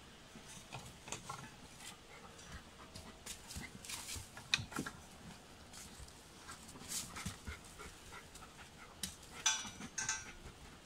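Dog sniffing and pawing at dirt and dry leaves while searching: an irregular string of short snuffles, scrapes and rustles, with louder bursts about halfway through and near the end.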